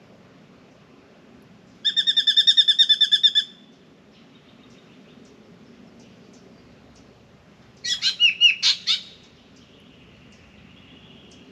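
Spangled drongo calling, scolding a pied currawong: a rapid run of about a dozen evenly spaced notes about two seconds in, then a short jumbled burst of notes about eight seconds in, and a faint drawn-out note near the end.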